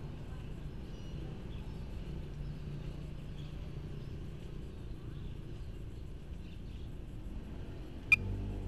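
Low steady rumble with a faint hum, and a single short, sharp beep near the end.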